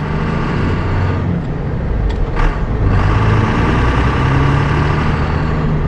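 Cummins inline-six diesel engine of a Dodge Ram W250 pickup pulling away, heard from inside the cab. The engine note rises and falls as the truck gets under way.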